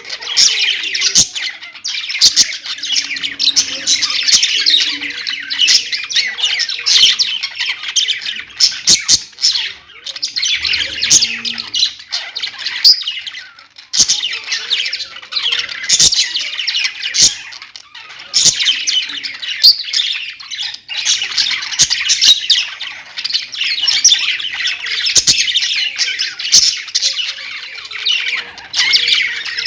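Small pet parrots chirping and chattering continuously in high, rapid, overlapping calls, with sharp clicks now and then.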